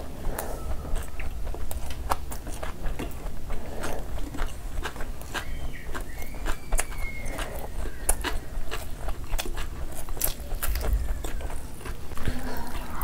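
Close-miked eating with the hands: chewing, lip smacks and many short, wet mouth clicks as two people eat meat curry and rice.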